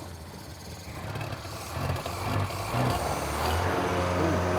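1980 Skoda 105's rear-mounted four-cylinder engine running just after starting first time from two years standing, getting louder about two seconds in.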